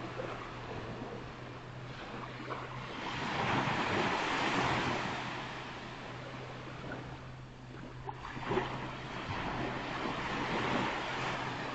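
Surf washing onto a beach, swelling about four seconds in and again near the end, over a steady low hum. A short sharp knock comes about two-thirds of the way in.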